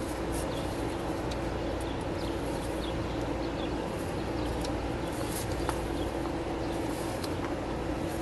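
A steady mechanical hum with scattered faint clicks and taps as hoses and fittings are handled in the engine bay, and a few faint bird chirps.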